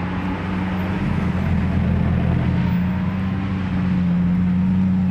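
Car engine running steadily at a constant pitch, a low hum over a rushing noise.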